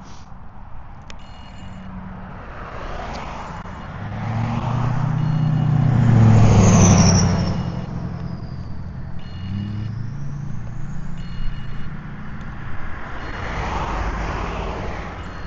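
Road traffic: a vehicle passes, rising to its loudest about six to seven seconds in with a high whine that falls and then rises again. A second vehicle passes more quietly near the end.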